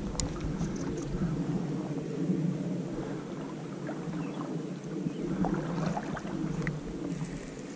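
A steady low rush of river water moving around a wading angler's legs, with wind buffeting the microphone for the first few seconds.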